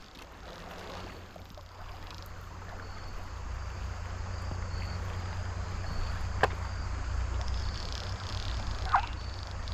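Creek water rushing steadily over a low rumble that swells about three seconds in, with one sharp click about six and a half seconds in and a brief high-pitched sound near the end.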